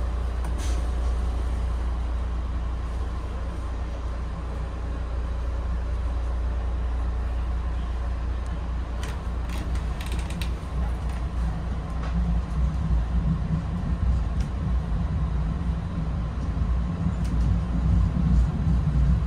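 Inside a Bombardier Comet IIM commuter rail coach: a steady low rumble with creaks and a few clicks from the car body. The rumble grows louder and rougher in the last several seconds.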